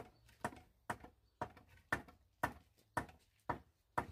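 A hammer striking wood in a steady rhythm, about two sharp blows a second.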